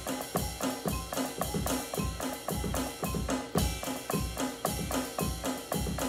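Electronic drum kit played in a fast, steady groove: bass drum and snare hits with rimshots, in an even, driving rhythm.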